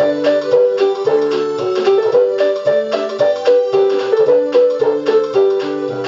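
Casio LK-175 lighted-key electronic keyboard playing a built-in song in a piano voice: a stepping melody in the middle range over bass notes and a steady drum beat, its keys lighting up as the notes sound.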